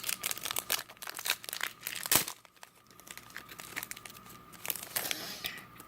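Crinkling and crackling of a football card pack's foil wrapper being handled, with a sharp snap about two seconds in.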